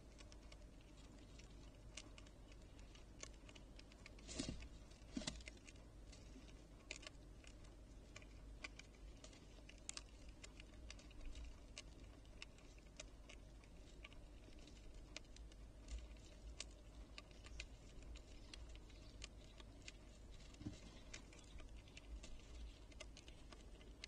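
Ezo red squirrel gnawing and cracking seeds at a feeder: irregular small clicks and taps, with two louder knocks about four and five seconds in.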